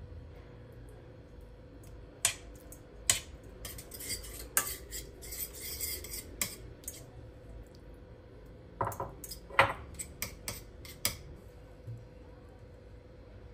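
Metal cutlery clinking and scraping against dishes, in two spells of quick clatter.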